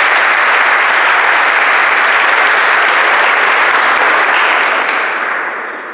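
Audience applauding, loud and sustained, then dying away near the end.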